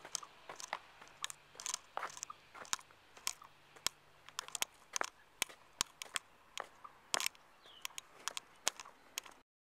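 Crunching footsteps at a walking pace, about two sharp steps a second, as a person walks along following a hand-flown foam glider. The sound cuts off suddenly near the end.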